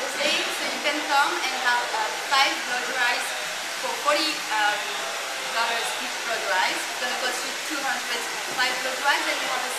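Hair dryer blowing steadily, a constant hiss with women's voices talking over it.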